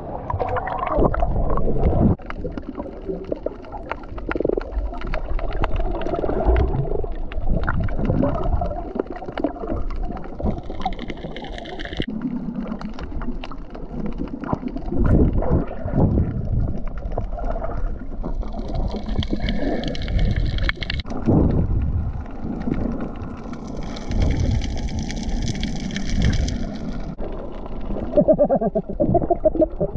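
Muffled underwater sound picked up by a submerged camera: water gurgling and sloshing with irregular low rumbles, and three short stretches of higher hiss.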